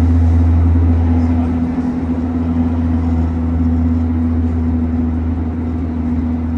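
Interior running noise of a Gyeonggang Line electric commuter train car in motion: a steady low rumble with an even hum over it.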